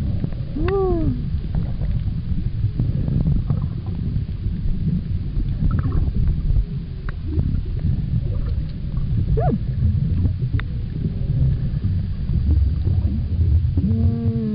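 Humpback whale song heard underwater: a few arched, moaning calls with overtones, one about a second in and a lower one near the end, plus short rising sweeps in between. Under it runs a steady low underwater rumble from water and bubble noise on the camera housing.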